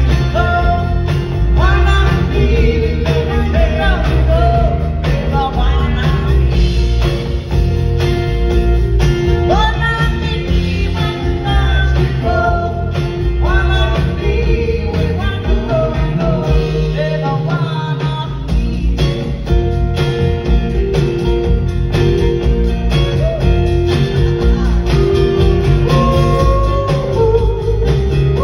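Live band playing a song with lead vocals over electric and acoustic guitars, drum kit and upright bass, recorded from the audience seats of a hall.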